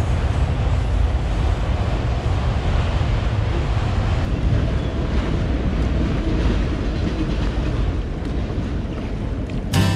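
Freight train of autorack cars rolling past with a steady low rumble, mixed with wind buffeting the microphone.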